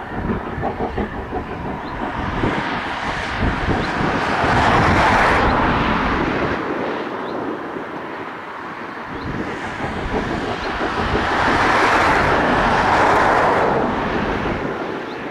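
Steam train running, its rushing noise swelling twice, each swell lasting about two seconds, over a rumble.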